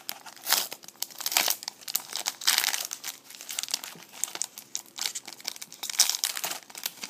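Trading card pack wrapper being torn open and crinkled by hand, in a run of irregular crackles and rustles.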